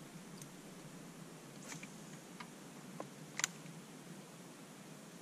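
A few light clicks from a fishing reel and rod being handled, the sharpest one about three and a half seconds in.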